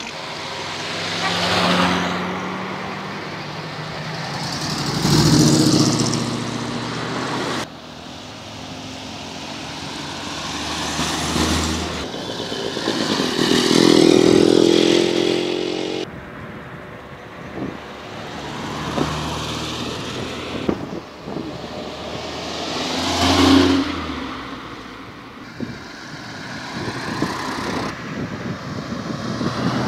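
Vintage cars and a moped with a sidecar driving past one after another, each engine swelling and then fading as it goes by. The moped's small engine buzzes past about halfway through.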